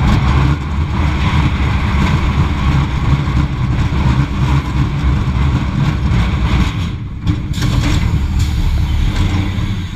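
Schwarzkopf Jet Star roller coaster car running on its steel track, a loud continuous rumble of wheels on rail heard from on board. The rumble eases a little near the end as the car comes into the brake run before the station.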